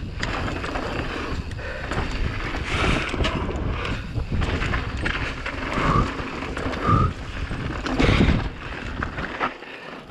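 Giant Reign Advance mountain bike descending a downhill trail at race speed: wind rushing over the chin-mounted action camera's microphone, with tyres, chain and suspension clattering and rumbling over rough dirt. Two short high squeaks come about six and seven seconds in.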